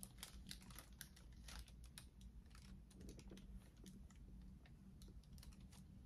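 Near silence with faint, scattered light clicks and soft rustles from a leather boot being handled and turned in the hands.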